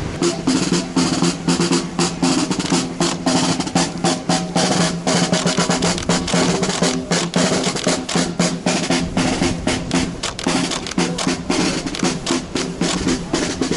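Military snare drums beating a rapid marching cadence with rolls, played by soldiers marching in formation. A steady low hum runs underneath.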